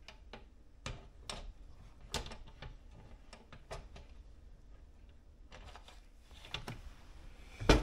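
Scattered light clicks and knocks of a glass PC case side panel being handled and fitted back onto the case, with one loud sharp click near the end as the panel closes into place.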